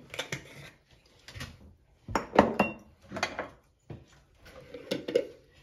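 Kitchen dishes and utensils being handled: a string of short clinks, knocks and clatters of spoons and containers, about half a dozen over a few seconds.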